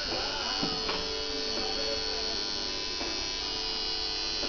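Electric tattoo machine buzzing steadily as the needle works ink into the skin of a man's arm.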